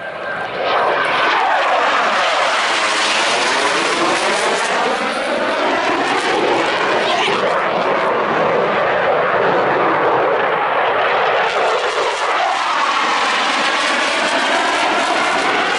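Loud roar of a Blue Angels F/A-18 Super Hornet's twin jet engines as it flies past. The roar builds over the first second, then holds steady, with a sweeping, whooshing shift in tone as the jet moves across.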